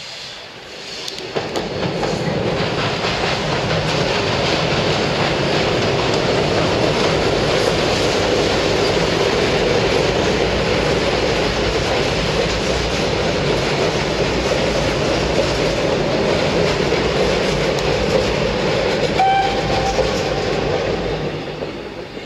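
Steam locomotive TY42-107 and its passenger coaches rolling across a steel girder railway bridge: a loud, steady rumble of wheels on the bridge that builds up soon after the start and fades near the end. A brief high-pitched squeal rings out near the end.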